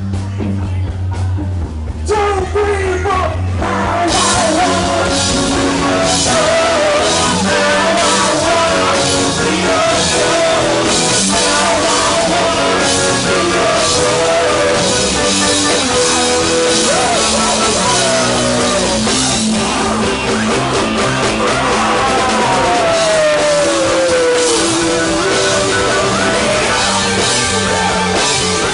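Loud rock music with singing, the full band filling out about four seconds in.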